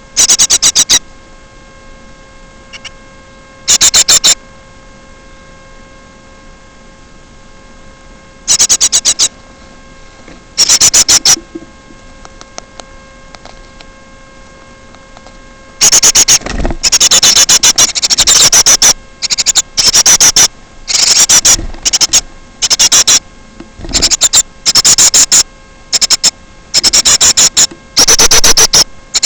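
Steady electrical mains hum, broken by loud, harsh rasping bursts about a second long. A few come early on, and they follow one after another from about sixteen seconds in.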